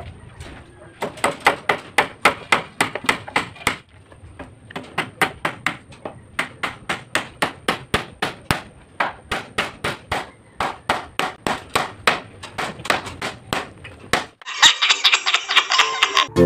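Hammer driving nails into coconut lumber, quick steady blows about three to four a second with a short pause about four seconds in. Near the end the hammering stops and a louder sound from an inserted clip cuts in.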